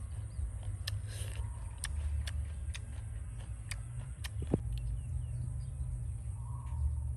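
Wind buffeting the microphone in the open as a steady, uneven low rumble, with scattered faint clicks over it.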